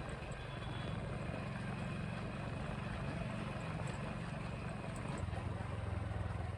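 Motorcycle engine running steadily while riding, with road and wind noise; the engine note drops lower about five seconds in.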